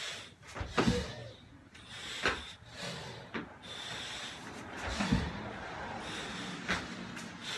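A person breathing hard through a set of burpees, with several dull thuds as hands and feet land on a rubber gym floor.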